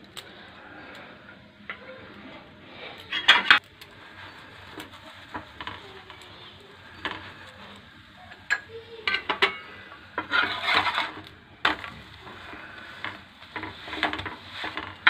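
Scattered knocks and clatter of cooking utensils: first a rolling pin on the rolling board, then a flat metal spatula scraping and tapping on a tawa as a maize-flour roti is laid on it and pressed.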